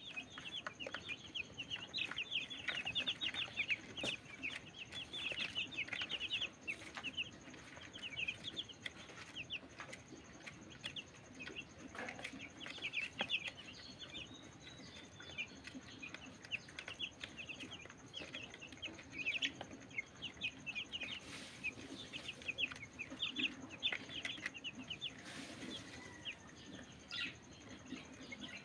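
A group of young chicks peeping constantly in rapid, short, high cheeps, with scattered sharp clicks of beaks pecking grain from a plastic feeder tray.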